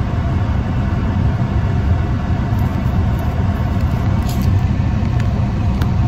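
Steady low rumble of a car heard from inside the cabin, the engine and road noise of the running car.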